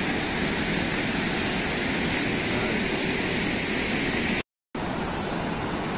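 Steady rushing of turbulent floodwater pouring through the opened weir gates of a river barrage. The sound drops out to total silence for a moment about four and a half seconds in.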